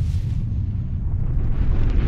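Explosion sound effect: a deep, continuous rumble, with a rushing hiss that grows brighter near the end.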